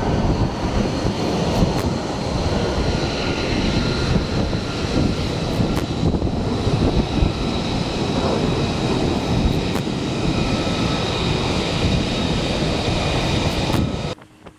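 F-35C's single Pratt & Whitney F135 turbofan running on the carrier's flight deck: a loud, steady jet roar with a high whine over it. It stops abruptly near the end.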